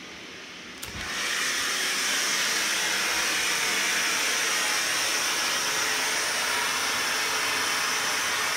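Steam jetting from the steam head of a steam shower fed by a Kohler K9 steam generator (Model 1659): after a click about a second in, a loud steady hiss starts and holds. The repaired generator is working and putting out steam.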